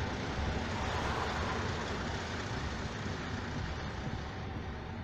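A heritage passenger train's last coach rolling past and away on the rails, its wheel rumble fading as it recedes.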